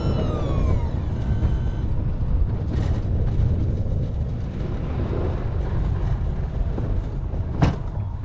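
A plow vehicle runs steadily with a low rumble while its Sno-Power rear plow pushes snow across pavement. A whine falls in pitch and fades out in the first second, and a single sharp clunk comes near the end.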